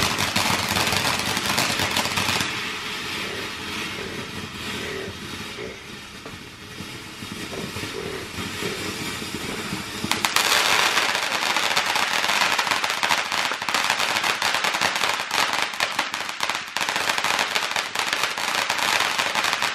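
Ground fountain firework spraying sparks with a dense crackling hiss. It dies down after about two and a half seconds and surges loud again about ten seconds in, until it cuts off at the end.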